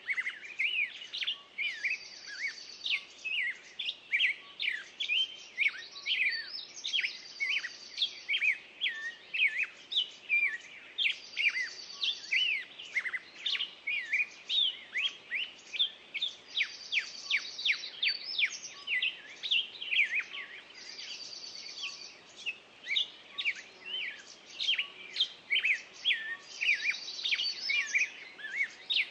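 Songbirds singing: a dense run of quick chirps and whistles, with a higher buzzy trill coming back about every five seconds.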